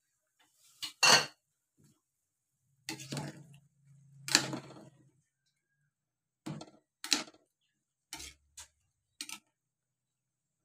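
A ladle knocking and scraping against a stainless-steel cooking pot while stirring soup. It is a series of separate clinks, the loudest about a second in and again about four seconds in.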